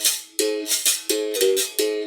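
Berimbau being played: the stick strikes the steel string about three times a second, each stroke with the rattle of the caxixi, and the note switches between a lower and a higher pitch.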